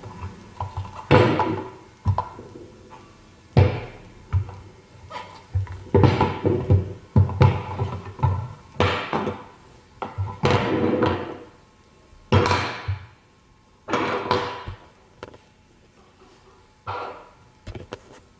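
Kitchen gadget being handled and worked: a series of irregular knocks, each followed by a short scraping or grinding burst under a second long.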